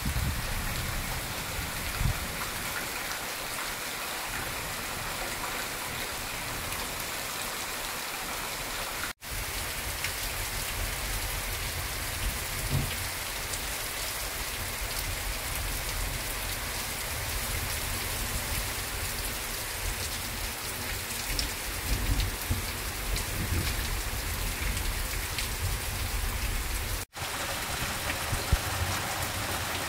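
Heavy rain falling steadily on foliage and a roof. The sound cuts out for an instant twice.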